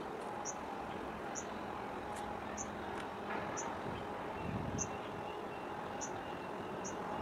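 Distant harbour ambience: a steady low rumble of engines and machinery with a faint steady hum, and a short high chirp repeating about once a second.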